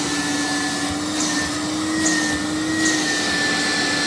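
Electromode Mercedes KK vintage vacuum cleaner running steadily with its hose fitted, a steady motor hum under a thin high whine, a bit squeaky.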